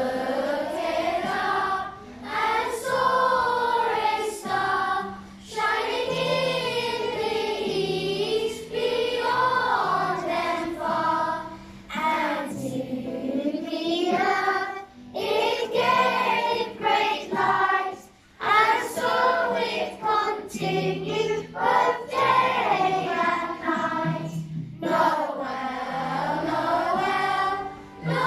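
A choir of primary-school children singing a Christmas carol, with steady low accompanying notes and short breaks between phrases.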